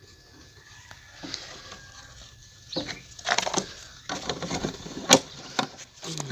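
Clicks and scraping of a plastic jar being handled and its plastic screw lid pressed on and turned shut, with snake tongs knocking against the jar. The clatter starts a little under three seconds in, with one sharp click about five seconds in.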